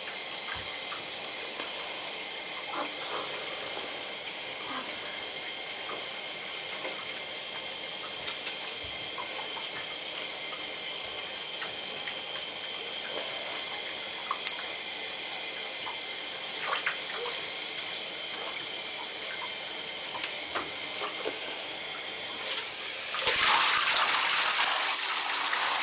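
Water running steadily into a bathtub as an even hiss, with a few faint small splashes; the rush of water gets louder near the end.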